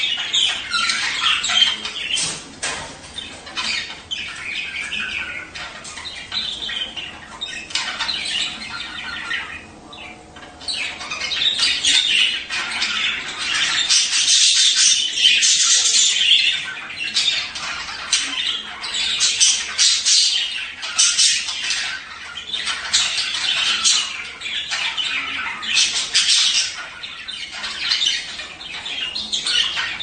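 Budgerigars chattering: a dense, overlapping stream of short high chirps and warbles from several birds, thinning briefly about ten seconds in.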